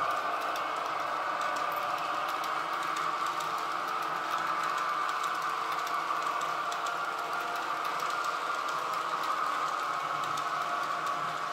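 H0 scale model freight train's log-loaded wagons rolling past on the track: a steady running hum with many small irregular clicks from the wheels over the rail joints.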